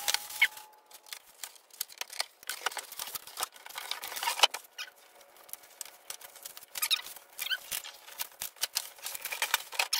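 Bubble wrap and plastic packaging rustling and crinkling in irregular spells as a wrapped solar panel is lifted out of its cardboard box and handled, with light scrapes and clicks.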